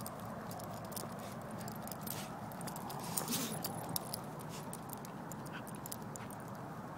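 A dog moving and sniffing through grass, with the crackling rustle of stalks and a louder stretch of rustling a little over three seconds in.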